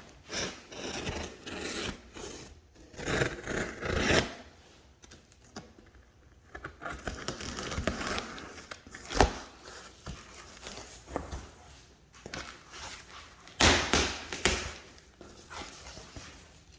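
A blade cutting open a cardboard shipping box, in irregular scraping and tearing strokes through tape and cardboard, with a sharp knock about nine seconds in.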